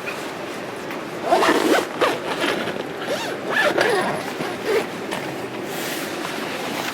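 Tent zipper being pulled in a few separate strokes, the longest about a second in and the next past the middle.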